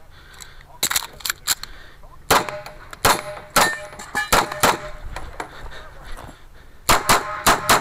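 Pistol fire from a CZ Shadow in quick strings of shots, about fourteen in all, with a pause near the middle and a fast run of five near the end. Some hits leave a brief metallic ring from steel targets.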